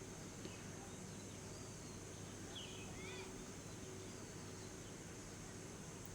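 Faint steady background hiss and hum, with a few brief bird chirps about two and a half to three seconds in.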